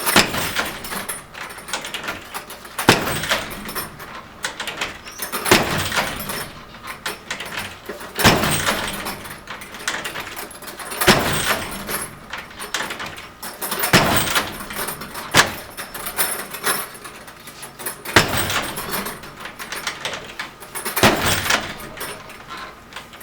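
A front door held by a Strike Plate Lock (door chain and flip lock) being struck over and over by a swung 90-pound heavy bag: a heavy impact about every three seconds, and the door holds.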